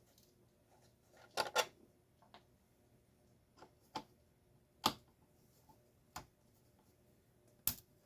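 About eight sharp clicks and taps at irregular intervals: small metal parts and hand tools being handled while screws are taken out of a garage door opener's gearbox.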